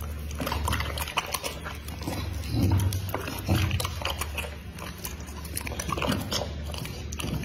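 A dog chewing raw meat, with irregular clicks and smacks from its jaws and mouth.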